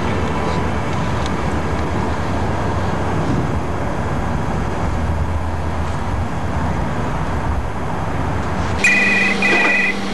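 Steady noisy rumble, then a telephone rings twice near the end, two short bursts of electronic trilling.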